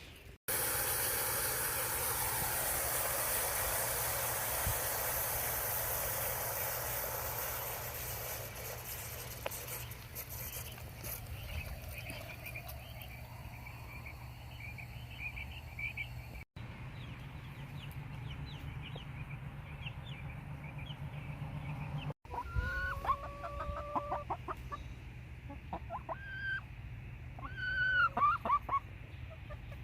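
Hens clucking and calling in short repeated notes, clearest in the last several seconds. A loud, even hiss fills the first several seconds.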